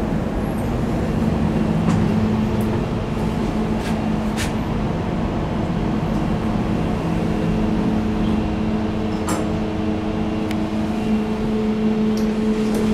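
Steady mechanical hum with a low drone, broken by a few sharp clicks.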